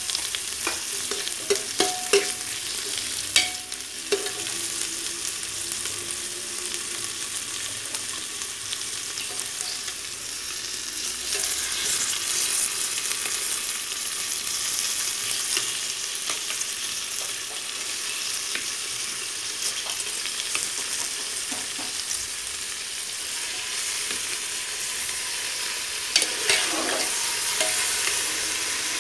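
Onions, green chillies and then raw chicken pieces sizzling in hot oil in an aluminium pressure cooker, with a spatula scraping and clicking against the pot as they are stirred. The sizzle grows louder a little before the middle, as the chicken goes in.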